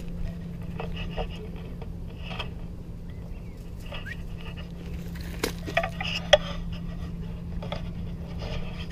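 Small terrier rooting about among dry leaves and tree roots, with a few light clicks and clinks about five and a half to six and a half seconds in, over a steady low hum.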